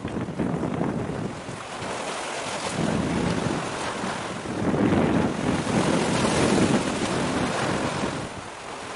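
Wind gusting across the microphone: a rushing noise that swells and fades, loudest about two-thirds of the way through.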